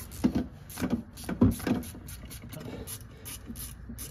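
Ratchet wrench clicking in an even rhythm, about four strokes a second, running in the mounting bolts of a new AC compressor; a few sharp metal knocks in the first second and a half.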